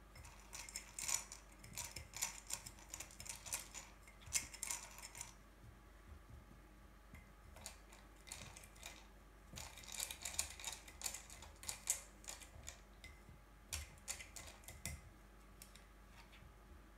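Dry cat kibble clicking and rattling against a hard plastic maze feeder as two kittens paw at the food and eat it. The clicks come in quick runs: a first spell of about five seconds, a short lull, then a second, longer spell that stops about two seconds before the end.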